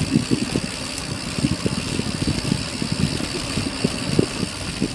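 Mountain bike rattling and bumping over a rough, rocky descent: a dense, irregular clatter of knocks from the tyres and frame on loose stones, over a steady hiss.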